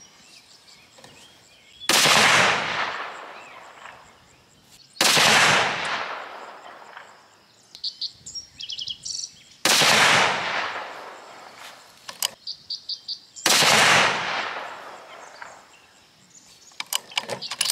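Four shots from a Savage Axis II bolt-action rifle in .243 Winchester, a few seconds apart, each report ringing out over a second or two. Short clicks between shots and near the end come from the bolt being worked.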